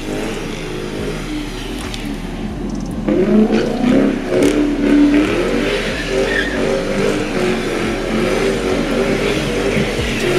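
A car being drifted: its engine revving hard in repeated rises and falls, with tyre squeal, getting louder about three seconds in.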